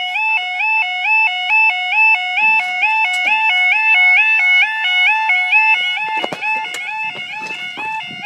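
Railway level crossing warning alarms (UK 'yodel' sounders) sounding together slightly out of step, each a rapid alternating two-tone wail that switches between a lower and a higher pitch several times a second.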